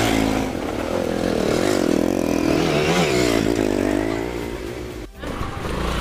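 Motorcycle engines running on a rough dirt track, their pitch rising and falling unevenly with the throttle. The sound cuts out briefly about five seconds in, then a low engine rumble picks up.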